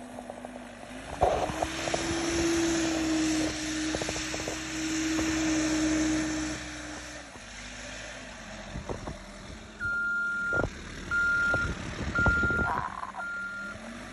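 Backhoe engine revving up under load for several seconds, then dropping back to idle, with clanks of the bucket and linkage. Near the end its reversing alarm starts beeping about once a second as it backs up.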